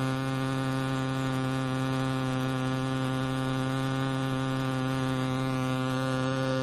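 Artificial vocal-fold sound source of a vocal-tract model making a steady, low-pitched buzz with no change in pitch. Its upper overtones shift near the end.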